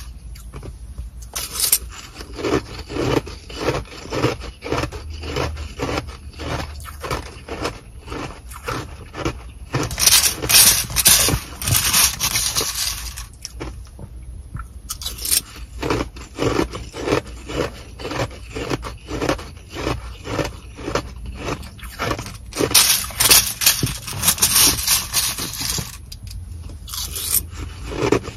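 Close-up chewing of Sonic-style nugget ice, a steady crunching about two to three bites a second. Two louder, harsher stretches, about ten seconds in and again near the end, come as a plastic spoon scoops more ice from the plastic bag.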